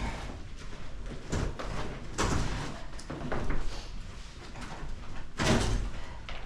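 Termite-eaten closet floorboards being pulled up and broken out by hand: a string of irregular rough scrapes and cracks, the loudest about five and a half seconds in.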